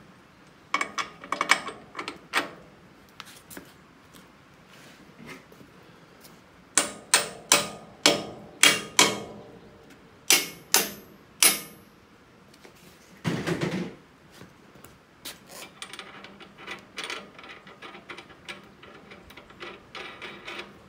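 Hand hammer striking the steel mount of a mini excavator's hydraulic thumb: a quick cluster of taps about a second in, then about ten hard metal-on-metal blows from about seven to twelve seconds in, the last few ringing. A short scrape about halfway through, followed by light clinks and taps.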